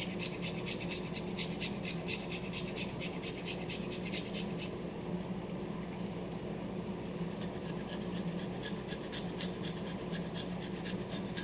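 Fresh ginger root grated on a hand grater over the pan: quick, even rasping strokes, several a second.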